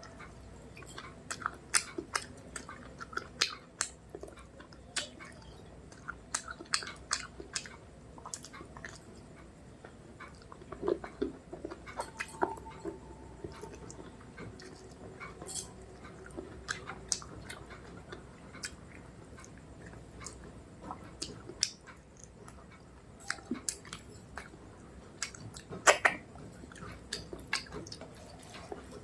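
Close-miked chewing and wet mouth smacks of a person eating rice with mutton curry, in irregular clicks throughout.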